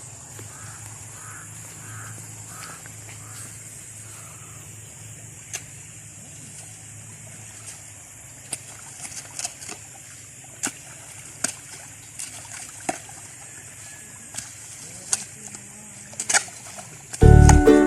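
Outdoor pond-side ambience: a steady high insect drone, a short run of repeated bird-like calls early on, then scattered short splashes and ticks at the water. Music comes in loudly near the end.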